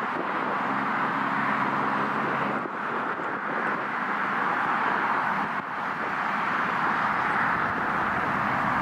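Airbus A380's four jet engines running at taxi power, a steady rushing roar. A low steady hum sounds over it for about two seconds near the start.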